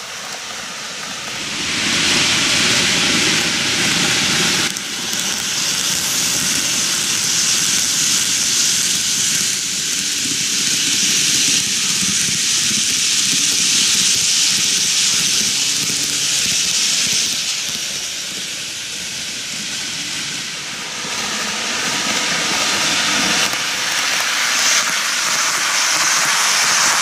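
Kintetsu 80000 series Hinotori N-gauge model train running on curved superelevated plastic track: a steady rolling hiss of metal wheels on the rails with a rough rumble beneath it. The sound swells about two seconds in, eases off for a few seconds past the middle, and grows again near the end as the train passes close.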